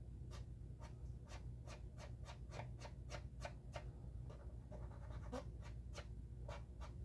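Light, quick scratching strokes of a cotton swab rubbed over the plastic hull of a model ship to blend in a weathering wash, about four strokes a second with a short pause about two-thirds of the way through. A faint steady low hum lies underneath.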